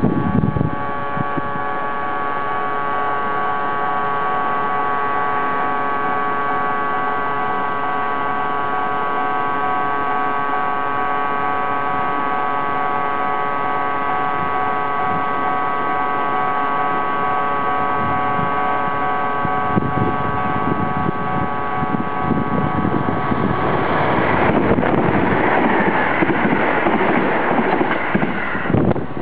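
Japanese level-crossing warning bell sounding steadily, with several tones held at once. About 24 seconds in, a Sanyo 5000 series electric train passes close by at top speed, and its loud rushing wheel and wind noise rises over the bell.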